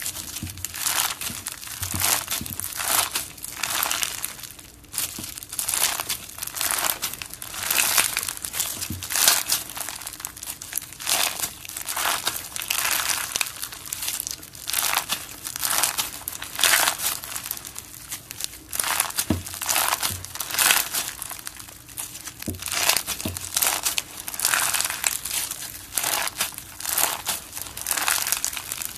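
Crunchy slime packed with small round fimo slices being squeezed and pressed by hand: crisp crackling crunches that come in irregular bursts, about one or two a second.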